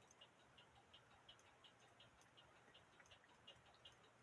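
Faint, even ticking of a count wheel cuckoo clock movement, about three ticks a second.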